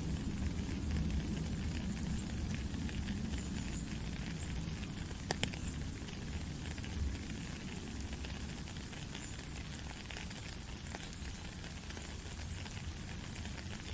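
Steady rain: an even hiss of falling drops with a low rumble under it and a few sharper drop ticks, the clearest about five seconds in.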